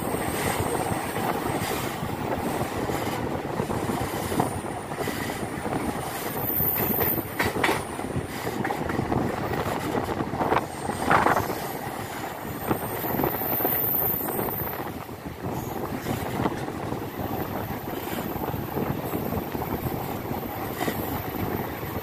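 Passenger train running on curving track, heard from an open coach window: a steady rumble of wheels on rail with a few sharp knocks. A thin, very high wheel squeal comes and goes, longest over the last few seconds.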